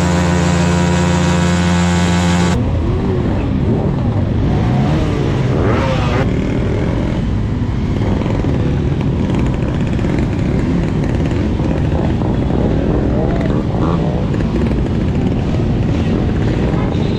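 A motorcycle engine held at steady revs, stopping abruptly about two and a half seconds in. After that, a busy mix of several motorcycle engines running at low speed in a slow-moving pack.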